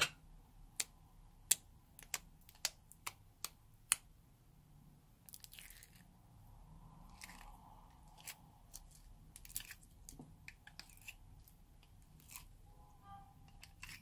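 Sharp pops and clicks as fingers poke into bubbly, foamy slime in a plastic palette, about eight in the first four seconds, then softer crackling and squishing with a few more pops as the slime is pulled out of the palette.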